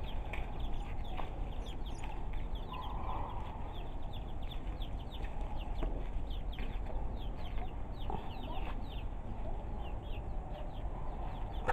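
A flock of chickens foraging and calling: many short, high, falling peeps scattered throughout, with some clucking.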